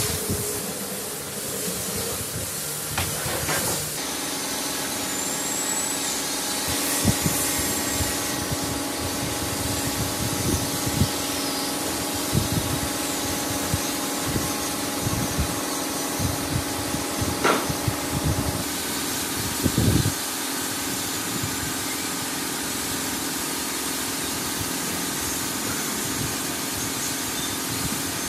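Screws being driven into the sheet-metal top cover of a smoke machine with a screwdriver, with scattered light metallic clicks and knocks over a steady hum.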